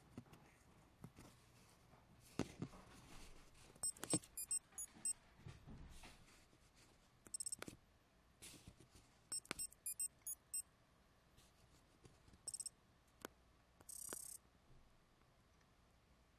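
Prebuilt sound module in a homemade Power Rangers communicator prop playing several short bursts of high electronic beeps and chirps as its button is pressed, with sharp button clicks between them.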